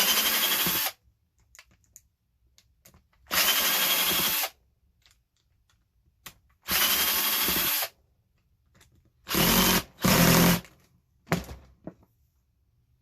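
Power drill running in short bursts, about six runs of around a second each with pauses between, driving screws out of a plastic air mattress pump housing.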